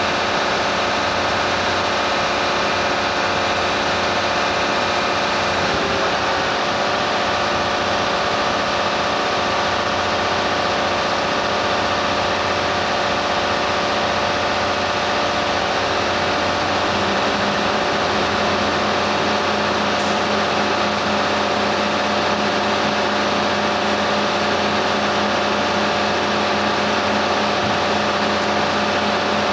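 An engine running steadily at a constant idle, with small shifts in its pitch about six seconds in and again near seventeen seconds.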